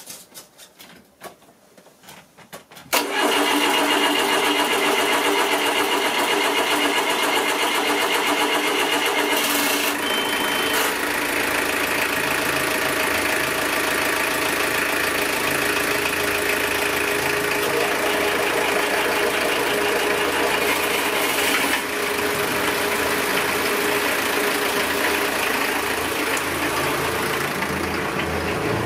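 Twin Volvo turbo diesel engines starting from cold. They catch abruptly about three seconds in and settle into a loud, steady idle. A high steady tone sounds over the engines at first and stops about ten seconds in.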